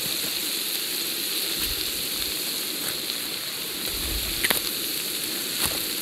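Meat and onion frying in oil in a large plow-disc pan, a steady sizzling hiss. Two sharp clicks come a little after four seconds in and again near the end.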